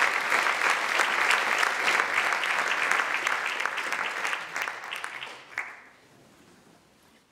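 Audience applauding, a hall full of clapping that thins out and dies away about six seconds in.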